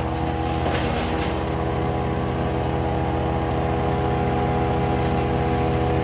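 Ravenger wood chipper's 18-horsepower engine running steadily, with a brief burst of noise about a second in.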